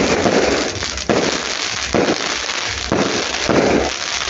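Fireworks display: aerial shells bursting in quick succession, about one bang a second, over a continuous dense crackle.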